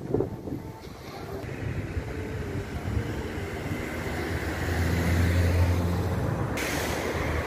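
Road traffic on a busy city avenue: a steady rumble of passing vehicles, with one engine's low drone swelling and loudest about five to six seconds in as it goes by.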